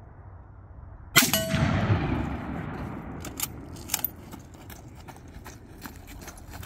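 A single rifle shot about a second in, its report rolling away over a second or two, followed by a couple of sharp clicks.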